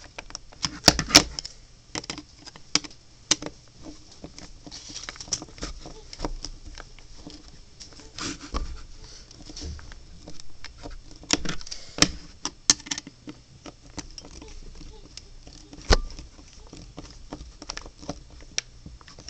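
Irregular small plastic clicks and taps from handling a DIY speedcube while tightening its center screws, with a few louder clicks about a second in, around eight and twelve seconds, and about sixteen seconds in.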